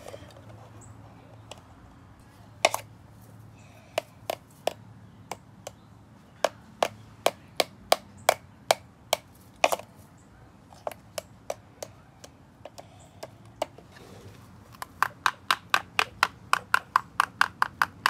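Small hammer striking the wooden pieces of a bird feeder kit. It starts as scattered single knocks, then from about halfway runs as a regular series of strikes. Near the end comes a quicker run of about three or four taps a second.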